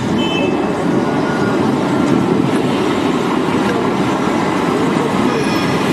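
A train or tram running on its rails with a steady, loud rumble, with brief faint high squeals near the start and again near the end.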